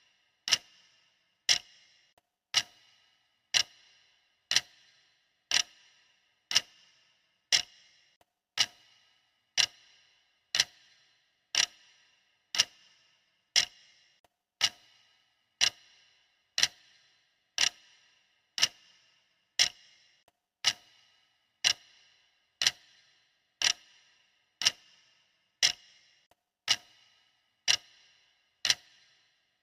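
Stopwatch ticking, one sharp tick each second, each with a brief bright ring after it.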